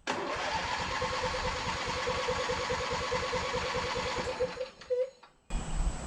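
Riding lawn tractor's starter cranking the choked engine after months of sitting, turning it over steadily with an even pulse for about four and a half seconds without it catching, then stopping; a short second burst of cranking follows just after.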